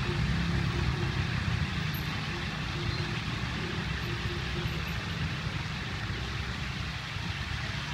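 Steady low rumble of motor-vehicle engines, with a constant hiss of street noise.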